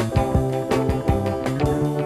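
Early-1970s rock band recording in an instrumental passage: keyboard or organ chords over bass and a steady drum beat, with no singing.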